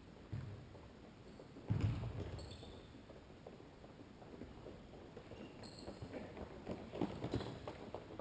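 Futsal play on an indoor hard court: a loud ball kick a little under two seconds in, then a run of quick footsteps and ball touches with brief shoe squeaks, echoing in the hall.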